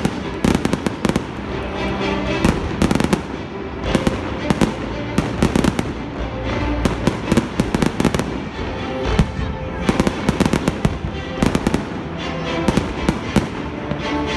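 Aerial firework shells bursting in quick succession, a dense run of bangs and pops, with music playing underneath.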